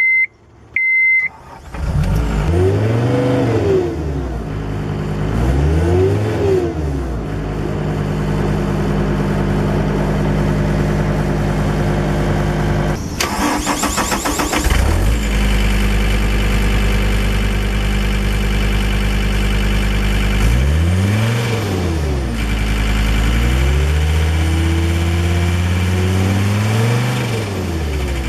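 John Deere 326D skid steer's diesel engine. Two short beeps sound, then the engine starts and is revved up and back down twice. It runs steadily, with a brief rapid clatter about halfway through, and is revved up and down twice more near the end.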